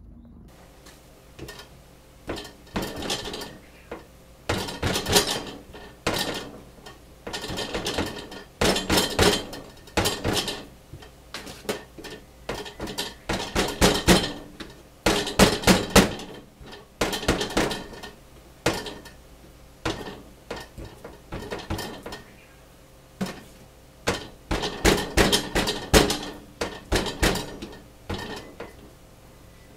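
A metal fork stabbing repeatedly into chunks of raw cartilage meat, its tines knocking against a bamboo cutting board in quick bursts of clicks every second or two.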